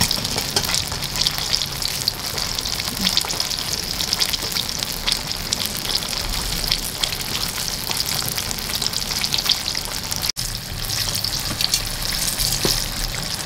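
Battered cempedak fritters deep-frying in hot oil in a wok: a steady sizzle with fine crackling. The sound drops out briefly about ten seconds in.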